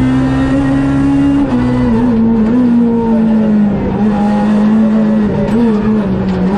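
Renault Clio R3C rally car's naturally aspirated 2.0-litre four-cylinder engine running hard at high revs, heard from inside the cabin. The engine note holds fairly steady, drops about a second and a half in, dips briefly a few times and sinks a little near the end.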